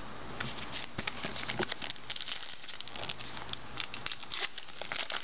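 Trading cards being flipped through and slid past one another by hand, a rapid run of light ticking and rustling that starts about half a second in.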